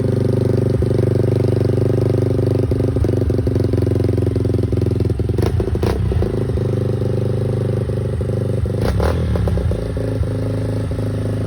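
Yamaha Raptor 350 quad's single-cylinder four-stroke engine idling steadily through its exhaust just after a cold start. The idle wavers a little near the end, and a few sharp clicks sound about five and a half, six and nine seconds in.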